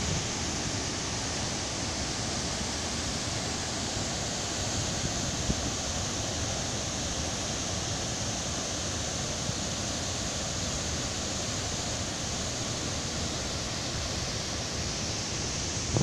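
Steady rushing of the Ouzoud waterfall pouring into its plunge pool, an even noise that holds unchanged throughout.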